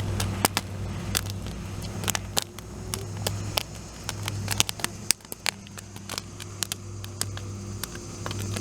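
Irregular sharp pops and crackles from popcorn kernels bursting over an open fire, several a second at times, over a low steady hum.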